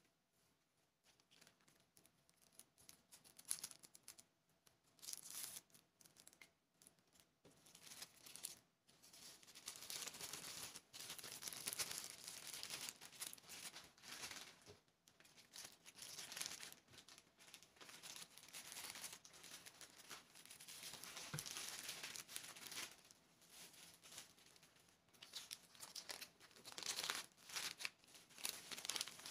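Thin plastic packaging bags crinkling and rustling in the hands in irregular bursts, as sunglasses and a cloth are slid into them. It starts faint and picks up about three seconds in.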